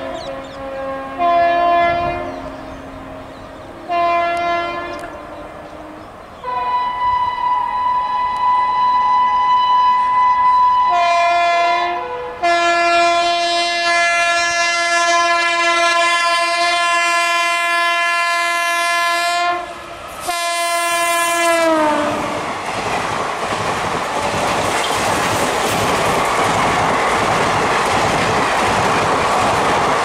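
Indian Railways WAP-7 and WAP-5 electric locomotives sounding their air horns: a few short blasts, then a long horn held for about fourteen seconds that switches to a lower tone partway and slides down in pitch as the locomotive passes at speed. After that comes the loud rushing and clattering of a fast passenger train going by.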